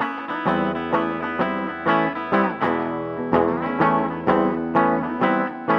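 Guitar playing an instrumental passage between sung verses, plucked notes and chords struck in a steady rhythm of about two a second.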